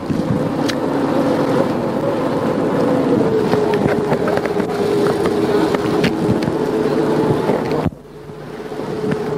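Water bus (vaporetto) engine running with a steady hum, recorded on an old Super 8 sound track. The sound drops abruptly near the end and comes back up gradually.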